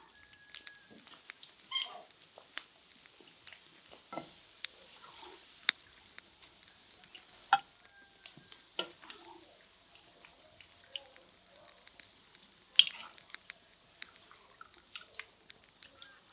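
Slotted metal skimmer clinking and scraping against a ceramic plate and the rim of a cauldron while fried mushrooms are lifted out, with irregular sharp clinks, the loudest about thirteen seconds in, over a faint sizzle of frying oil.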